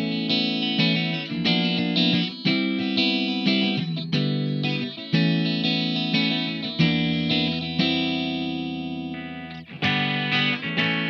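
SLX Raven Modern Pro 24 HH electric guitar with Seymour Duncan humbucker pickups, played through an amp in a run of picked notes and chords. About seven seconds in, one note is left ringing and dies away for about three seconds, and then the playing starts again.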